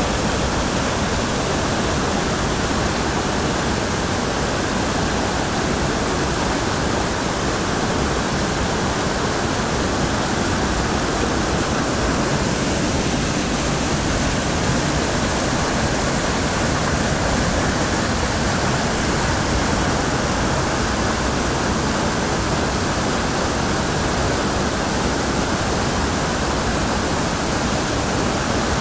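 Waterfall and a rushing stream pouring over rocks: a steady, even rush of water.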